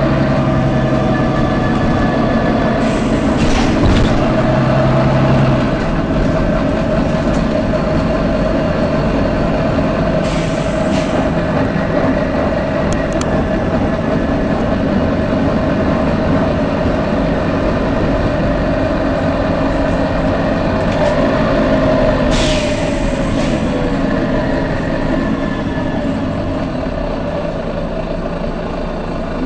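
Volvo B9TL double-decker bus running, with steady engine and road noise, broken by three short air hisses ('tsh'): one a few seconds in, one about a third of the way through, and one about three-quarters through.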